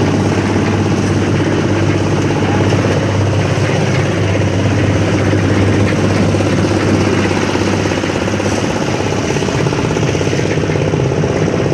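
Engine of a portable concrete mixer running steadily, a constant loud hum.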